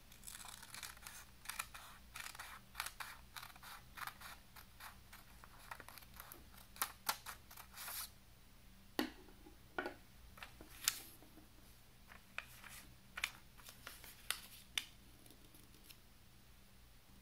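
Scissors snipping through thin printed paper, many short cuts in quick succession for about eight seconds. After that come a few separate sharp clicks as the paper and scissors are handled.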